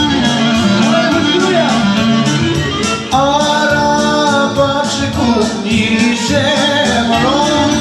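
Live Albanian wedding dance music from a keyboard playing violin- and accordion-like melody over a quick steady beat, with a man singing long held notes.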